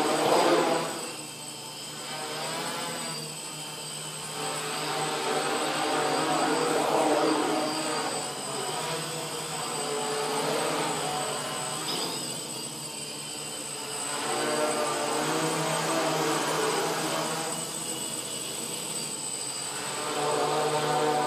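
Quadcopter's electric motors and propellers buzzing in flight, rising and falling in pitch and loudness every few seconds as the throttle changes.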